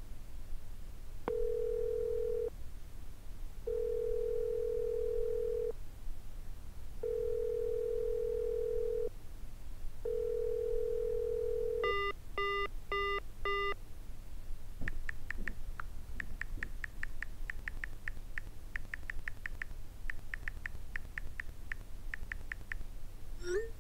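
Smartphone call ringing out unanswered: four long, even ringback tones heard through the handset, then four quick beeps as the call ends. After that comes a run of rapid light clicks from the on-screen keyboard as a text message is typed.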